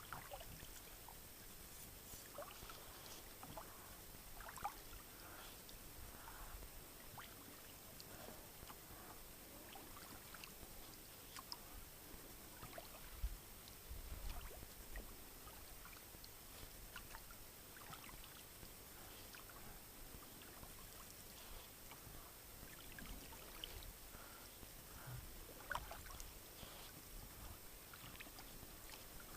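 Faint water sounds of a paddle dipping and dripping beside an inflatable boat on calm water: scattered small drips and splashes. One louder low thump comes about thirteen seconds in.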